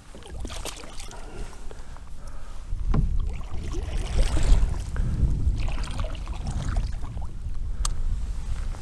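Water sloshing and splashing around a kayak, with irregular knocks and clicks of handling against the hull. A low rumble comes in and grows about three seconds in.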